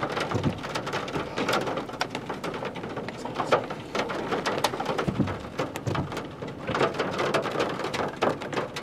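Rain falling during a thunderstorm, with many separate raindrops striking close to the microphone as irregular sharp taps over a steady hiss, and a low thump about five seconds in.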